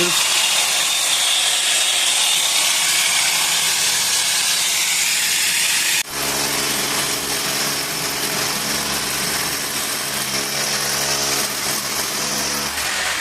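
An electric power tool cutting into masonry for AC pipe routing: a steady, loud grinding run, with a brief break about six seconds in, then the motor's steady hum under the cutting noise.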